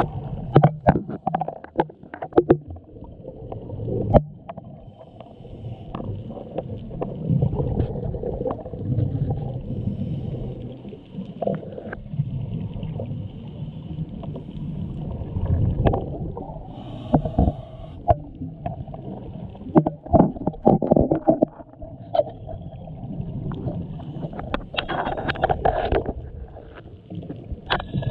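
Muffled underwater sound heard through a camera's waterproof housing on a scuba dive: low rumbling and gurgling with scattered sharp knocks and clicks, and a louder gurgling stretch near the end.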